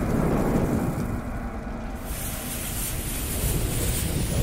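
Intro sound effect of a lit bomb fuse and flames: a steady low rumble with a rushing hiss, the hiss growing brighter about two seconds in as the fuse sparks.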